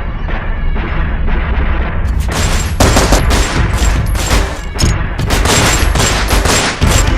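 Rapid bursts of gunfire sound effects over background music. About two seconds in, the shots become sharper and denser, a near-continuous volley.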